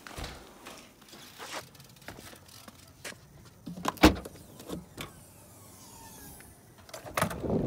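Scattered clicks and knocks, with one loud clunk about four seconds in as a Ford hatchback's tailgate latch is released and the hatch lifted. Wind noise on the microphone comes up near the end.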